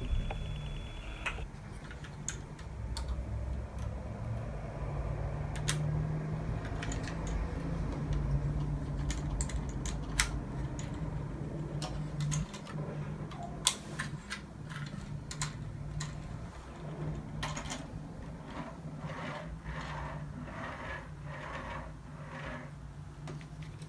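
Plastic LEGO pieces clicking and snapping as wheels are pressed onto a LEGO carriage model, over a low steady hum. In the last few seconds the carriage is rolled back and forth on a table, its plastic wheels making a short rolling rattle about every two-thirds of a second.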